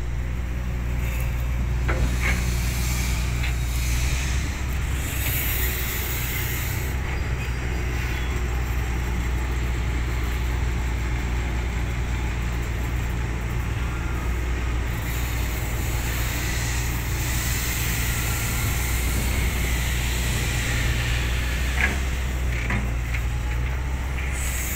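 The diesel engine of a Hyundai 220LC-9S hydraulic excavator runs steadily under load as it digs and swings dirt into a dump truck. Bursts of hiss come and go, and there are a few sharp knocks, one about two seconds in and more near the end.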